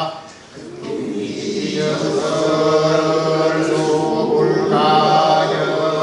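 A man chanting classical Chinese text aloud in the traditional Korean sing-song recitation style, holding long steady tones, with a short break for breath about half a second in.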